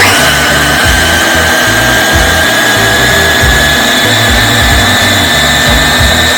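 Electric blender switched on and running at full speed, its motor whine rising slightly in pitch as it blends the sauce.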